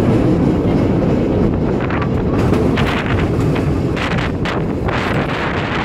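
Wind buffeting the microphone over the steady rumble of a San Francisco cable car running on its rails. A few short clatters come in the middle.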